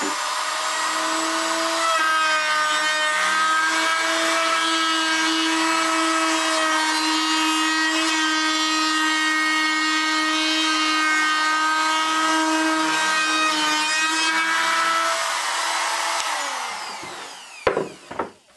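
Small hand-held trim router with a roundover bit running at full speed and rounding over the edges of a pallet-wood handhold: a steady whine with the rasp of the bit cutting wood. The motor winds down near the end, followed by a few knocks.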